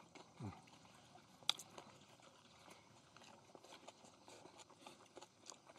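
Near silence, with faint scattered crackles and a single sharp click about one and a half seconds in.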